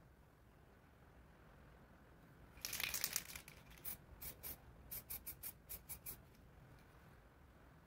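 A burst of crinkling and tearing, like thin material being handled or torn, followed by a run of about a dozen short, sharp crackles or snips.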